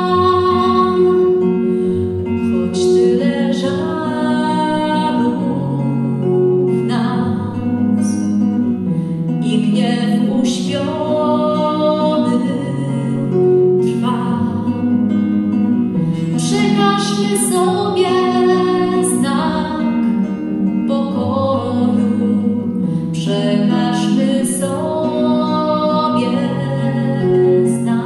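A woman singing a slow song in long held notes to her own plucked classical guitar, with low bass notes moving underneath the voice.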